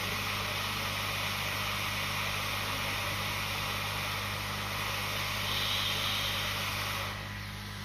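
Hot-air rework station blowing a steady rush of hot air onto the board to desolder MOSFETs, over a low electrical hum; the air cuts off about seven seconds in.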